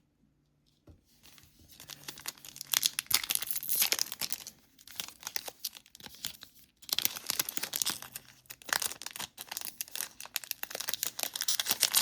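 Trading-card pack wrapper being torn open and crinkled by hand. There are two bouts of crackling, with a quieter pause of about two seconds in between.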